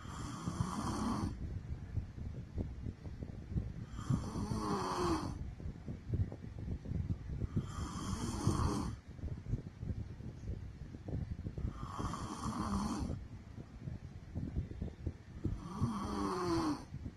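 A sleeping woman snoring in a steady rhythm: five snores, each about a second long, one roughly every four seconds.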